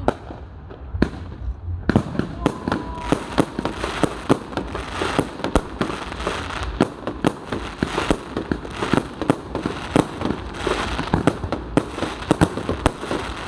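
Aerial fireworks going off overhead: a rapid run of bangs and crackling pops, sparse at first and coming thick and fast from about two seconds in.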